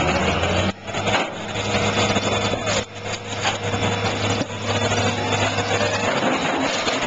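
Mobile crane's engine running steadily under a loud noisy hiss, breaking off briefly two or three times.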